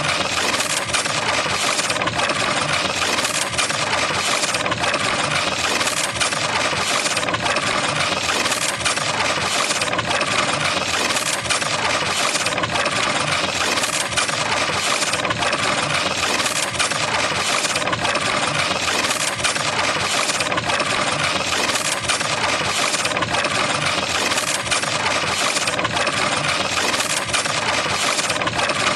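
Loud, steady, harsh distorted noise with a faint pulse about every second and a quarter: a digitally processed "G Major" style sound effect.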